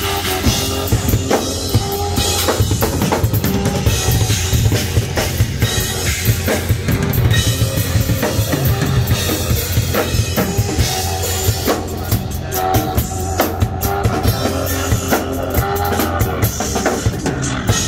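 Two drum kits played together by a street drumming duo, with busy kick drum, snare and cymbal hits. Steady pitched notes run underneath, from a backing track through a speaker.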